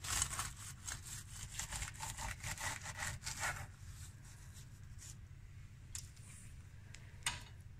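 Serrated bread knife sawing through a crisp puff-pastry braid topped with almonds, the flaky crust crackling and crunching with each quick stroke. The cutting stops after about three and a half seconds, and a single tap comes near the end.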